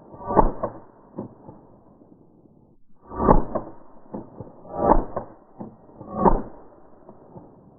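A .22 LR rifle firing tracer rounds in a string of sharp shots. The loudest come about a second and a half apart, and each is followed by fainter cracks and echoes.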